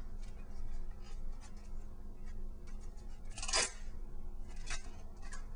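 Tape being pulled off the roll and wrapped tight around foam on a sword core: light crackling and rubbing, with one louder, longer pull of tape a little after three seconds in.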